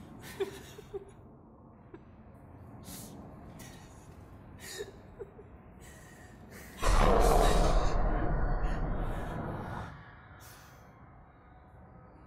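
A woman crying: short, shaky gasping breaths and sighs. About seven seconds in, a loud rushing, breathy noise lasts about three seconds.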